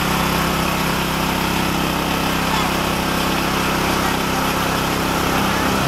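An engine running steadily at an even speed: a constant drone that doesn't change in pitch.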